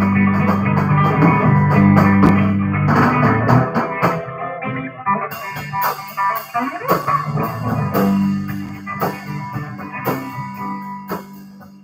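Live band playing amplified: electric guitar over bass and drums, with cymbals filling in from about five seconds in. The playing gets quieter toward the end.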